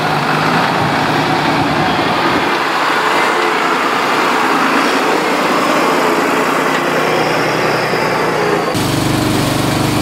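Truck engine running steadily. About three-quarters of the way through, the sound cuts abruptly to a lower, steadier engine drone.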